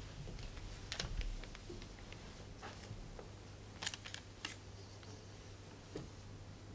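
Faint scattered clicks and knocks of a person moving about: footsteps and the handling of things, over a steady low hum. There is a louder knock about a second in and a quick run of sharp clicks a little past halfway.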